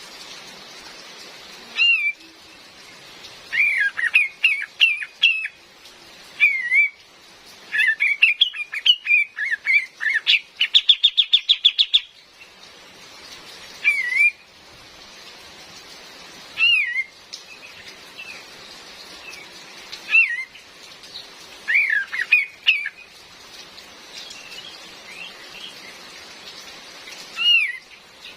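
Female kapas tembak calling in short bouts of swooping whistled notes every few seconds, with one fast rattling run of notes near the middle, over a steady hiss of rain.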